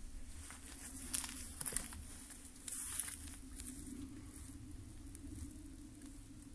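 Faint rustle of a hand-held camera being handled, with a few soft scuffs and clicks as someone walks around, mostly in the first three seconds, over a steady low hum.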